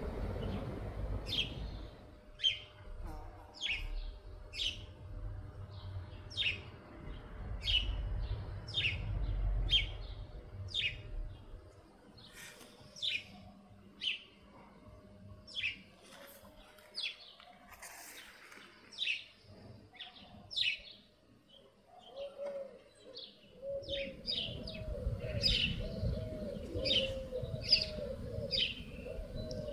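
A small bird chirping repeatedly, single short chirps a little over one a second. From about two-thirds of the way through, a dove cooing low underneath. A low background rumble fades about twelve seconds in and returns near the end.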